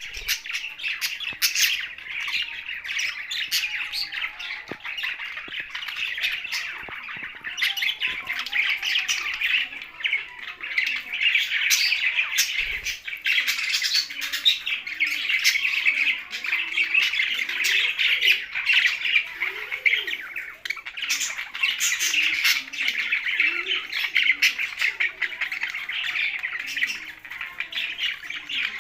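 A flock of caged budgerigars and parrots chattering and squawking together, a dense and continuous mix of chirps, warbles and sharp calls with no pauses.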